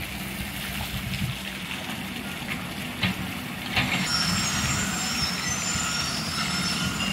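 Steady rumble of road traffic, a heavy vehicle's engine running. A higher hiss joins about four seconds in.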